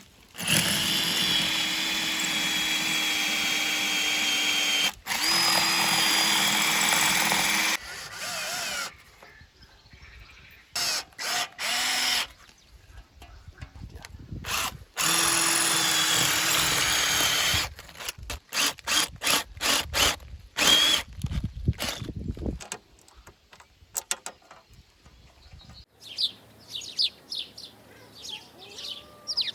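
Power drill running in three long, steady runs of a few seconds each with a steady whine, then in many short quick bursts. Birds chirp faintly near the end.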